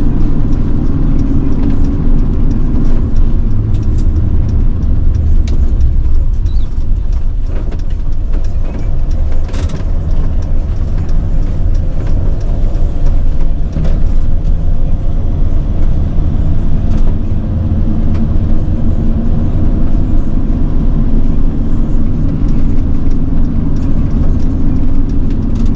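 Road and engine noise heard inside the cab of a Sprinter van while driving: a steady low rumble.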